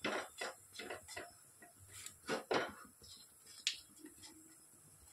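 Silicone spatula stirring and scraping around a nonstick wok, a string of short soft scrapes and taps, the loudest two about two and a half seconds in, as dried red chillies and black cumin seeds are turned in hot mustard oil for a tempering.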